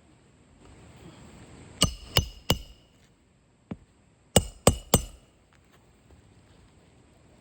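Hand hammer striking roofing nails into asphalt shingles: two sets of three quick, ringing metal-on-metal blows, a couple of seconds apart, with a light tap between them.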